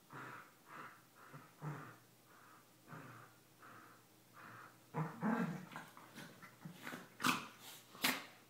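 Two Pembroke Welsh corgis mouthing at each other in play. Soft snuffling breaths come about twice a second, then about five seconds in come louder mouthing noises with two sharp clicks near the end.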